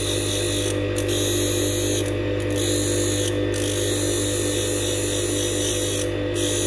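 Electric blade-sharpening grinder running steadily, a hair-clipper blade being ground on it: a low hum with steady tones, and a high grinding hiss that breaks off briefly four times.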